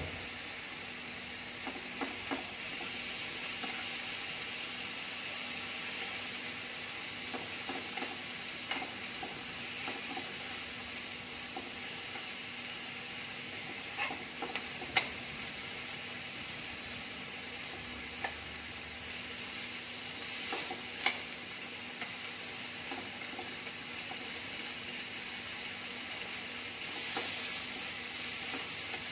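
Korean-style marinated beef slices and spring onions sizzling steadily in a hot frying pan, with a few sharp clicks of the cooking utensils against the pan as the meat is turned.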